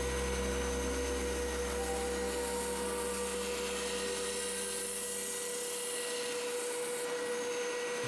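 Triton TSPST450 oscillating spindle sander running steadily with a constant motor whine, with the abrasive sleeve rubbing on a pine edge pressed against it. A shop vacuum connected for dust extraction runs alongside.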